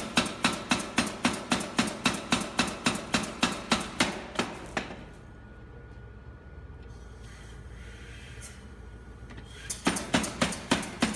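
Chambersburg 200-pound general utility air hammer striking repeatedly at a steady rate of about four blows a second. The blows stop for about five seconds midway, leaving a low steady hum, then start again near the end.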